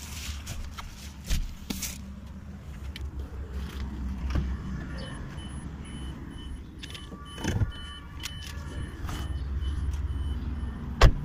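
A car's electronic warning chime beeping at an even pace for several seconds through the middle, over a low steady hum and handling knocks. Near the end comes a sharp latch click, the loudest sound, as a rear door is opened.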